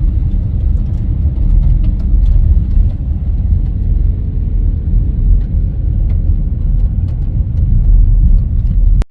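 Car driving: a loud, steady low rumble of road and engine noise that cuts off abruptly near the end.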